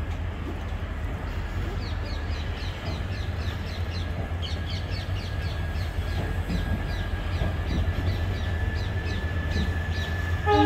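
Palace on Wheels coaches rolling past along the platform as the train pulls out: a steady low rumble of wheels on rails with a faint high whine. From about two seconds in, a run of short high chirps, several a second, rides over it.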